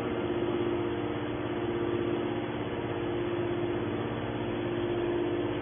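Hydraulic power pack of a metal scrap baler running with a steady hum of several held tones, its electric motor and pump driving the cylinder that slowly raises the baler's hinged lid.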